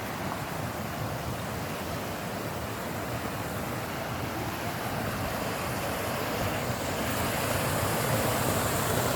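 Rushing mountain stream: a steady wash of running water that grows louder over the last few seconds.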